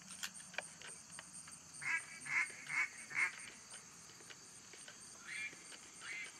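A run of loud duck quacks: four in quick succession about two seconds in, then two more near the end, over a steady pulsing chirr of insects.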